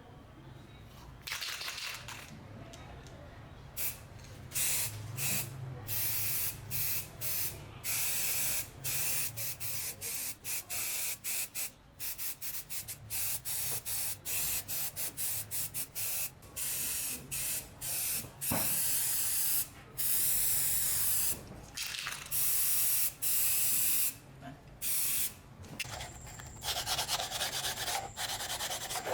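Pressurised spray hissing in many short bursts, a few held for about a second, as parts are sprayed during the restoration of an electric blower. Near the end it gives way to a steadier rubbing, sanding sound with a thin high whine.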